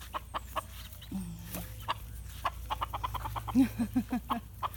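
Backyard chickens clucking as they are herded along: a quick, busy run of short clucks throughout, with a few lower clucks in a row near the end.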